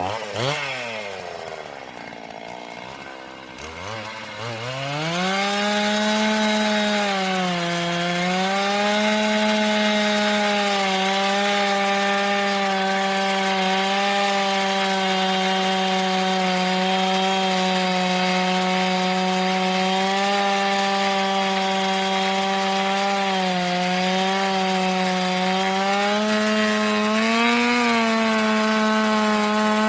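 Two-stroke gasoline chainsaw running unevenly at lower speed, then throttled up about five seconds in to a steady high-pitched run, cutting wood. The pitch dips briefly a few times.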